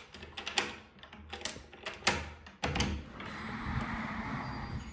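A key rattling and turning in a door lock, with a quick series of sharp clicks. About three seconds in, a sliding glass door rolls open in its track with a steady rumble.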